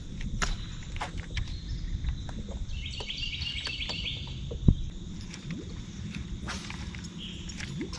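A bird sings a short, quick chattering phrase a few seconds in, over a steady low outdoor rumble. Scattered light clicks and one dull knock sound around it.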